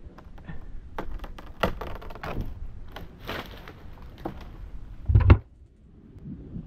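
Irregular cracks, clicks and knocks of dry dead-elm twigs and branches breaking and rubbing as a climber moves through the tree, with one loud thump about five seconds in.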